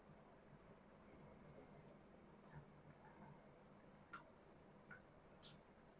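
Two short high-pitched electronic beeps, the first a little under a second long about a second in, the second shorter about three seconds in, over faint room tone with a few light ticks near the end.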